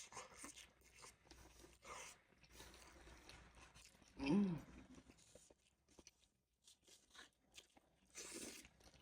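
Crunching and chewing of hard-shell tacos, close to the microphone, in short bursts a few seconds apart. About four seconds in comes a brief hummed sound that rises and falls in pitch, the loudest moment.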